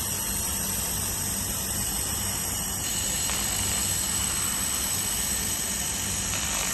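Handheld laser welding machine running during a weld without filler wire: a steady low hum under a hiss, with the hiss growing brighter about three seconds in.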